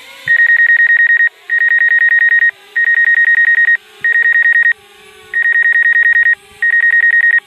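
Electronic warning beeper: a high beep pulsing rapidly in six runs of about a second each, separated by short gaps.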